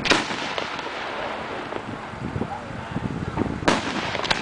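Aerial firework shells bursting in the sky: a sharp bang just after the start, another about three and a half seconds later, and a smaller crack right after the second.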